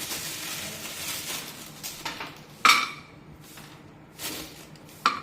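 A big spoon stirring almonds in a kadhai: the nuts rattle and scrape around the pan for the first two seconds, then the spoon clinks sharply against the pan twice, with a softer knock between.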